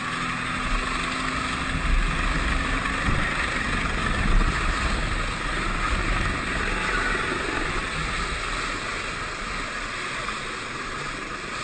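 Inflatable rescue boat under way on choppy sea: steady motor and rushing water, with wind buffeting the microphone and a low rumble that swells a couple of times.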